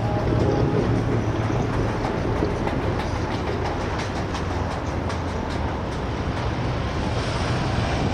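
City street traffic noise with a vehicle engine idling close by as a steady low hum, and a run of light clicks in the middle.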